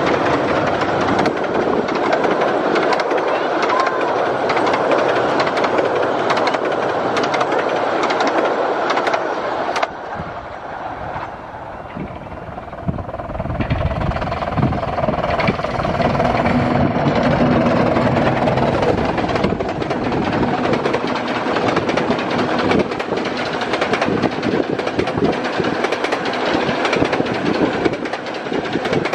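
A 15-inch-gauge steam train on the Romney, Hythe & Dymchurch Railway running at speed, with many short clicks of wheels over the rails. The sound drops for a few seconds about ten seconds in, then builds again.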